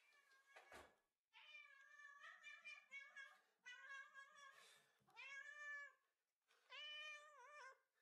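Cat meowing: a string of long, wavering meows, one after another.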